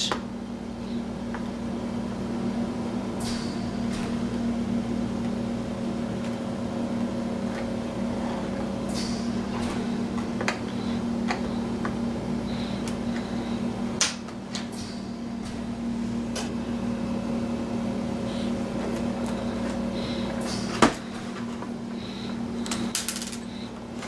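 Plastic laptop case handled on a desk: scattered light clicks and knocks over a steady low hum, with one sharp knock about 21 seconds in.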